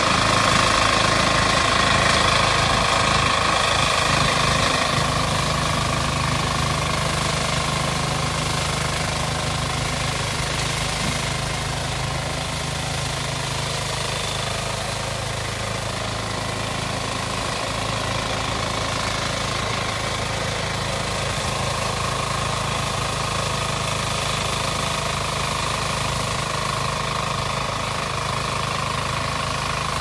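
Small walk-behind rice combine harvester running steadily as it works through the rice, its engine note carrying a steady higher whine. It grows a little fainter over the first several seconds as the machine moves away, then holds steady.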